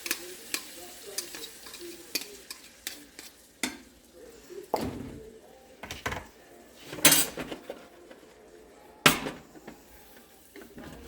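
Eggs frying in a skillet with a faint sizzle, while a spatula scrapes under them and knocks against the pan. The two loudest clanks come about seven and nine seconds in.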